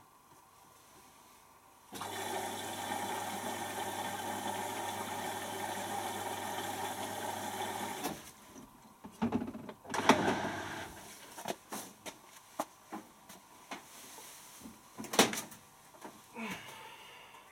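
Beko WTB741R2A washing machine starting a cycle: water rushes in through the inlet valve with a steady hum for about six seconds, then cuts off suddenly. After that come scattered clicks and knocks, two of them louder.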